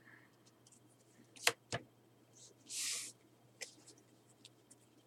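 Trading cards and a plastic deck box handled on a playmat: two sharp taps about a second and a half in, then a short sliding rustle in the middle and a few faint clicks, over a faint steady hum.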